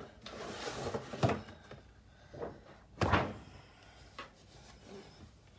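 Packaging being handled as a cardboard shoebox is taken out of its shopping bag: a soft rustle, a couple of knocks, and a louder thump about three seconds in.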